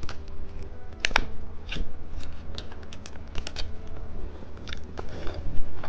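Plastic wrapper of a cheese stick being handled and peeled open: a string of sharp, irregular clicks and crinkles, with a low steady hum underneath.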